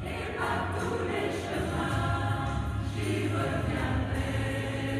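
Mixed choir of men and women singing a French popular song in sustained chords, moving into new phrases a few times.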